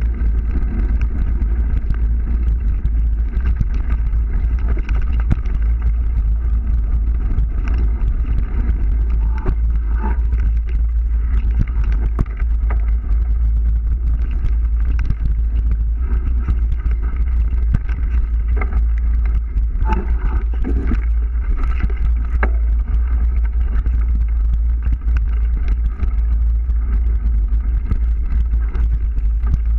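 Heavy, steady wind rumble on the camera's microphone as it rides down a forest dirt trail on a mountain bike, mixed with tyre noise on the dirt and scattered knocks and rattles from the bike over bumps.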